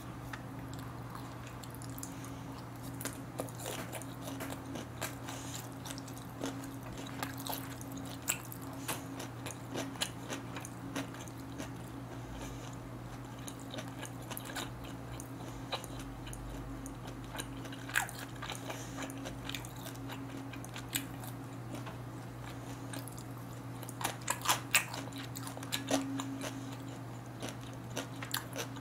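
A person chewing a smoked duck meal with side dishes close to the microphone: wet chewing with scattered crisp, crunchy bites, and a run of louder crunches near the end. A steady low hum runs underneath.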